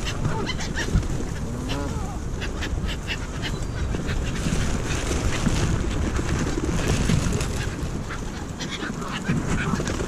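Canada geese honking beside a flock of feeding pigeons, with many short sharp clicks from the flock and wind rumbling on the microphone.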